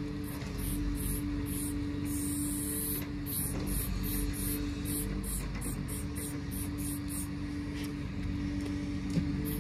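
Aerosol spray paint can hissing in quick short bursts, about three a second, with one longer spray about two seconds in; the bursts stop shortly before the end. A steady low hum runs underneath.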